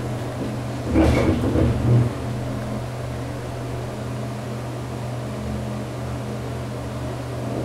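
Midstate hydraulic elevator car on its ride, a steady low hum inside the cab, with a louder rumble and knock about a second in that lasts about a second.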